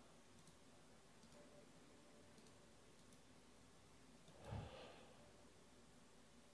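Near silence with a few faint clicks, then a man's short sigh, a breath into the microphone, about four and a half seconds in.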